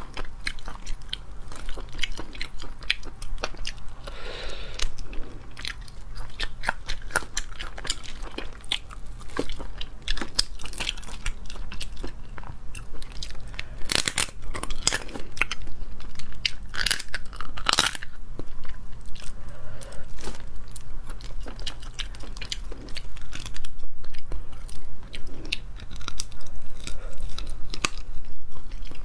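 Close-miked crunching, cracking and chewing as boiled crayfish are peeled and eaten: their shells snap and crackle under the fingers and teeth, with several louder cracks about halfway through. A steady low hum runs underneath.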